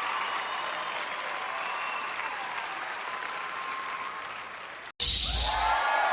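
Audience applause and cheering, fading gradually, then an abrupt cut to a sudden magic fire 'poof' sound effect about five seconds in, a loud whoosh with a deep low rumble, followed at once by a fresh swell of crowd cheering.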